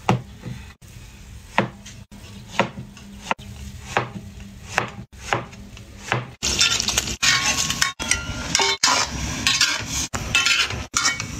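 A cleaver slices through zucchini onto a wooden cutting board in separate crisp strokes, roughly one every half second. About six seconds in this gives way to sliced zucchini sizzling in a wok while a metal spatula scrapes and clinks against the pan.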